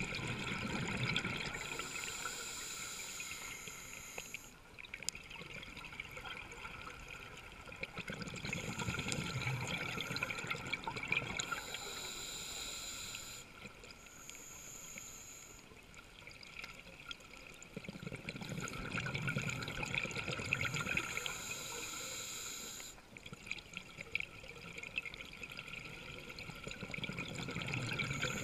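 Scuba diver breathing through a regulator, heard underwater: exhaled bubbles about every nine seconds, each breath followed by the hiss of air drawn through the regulator.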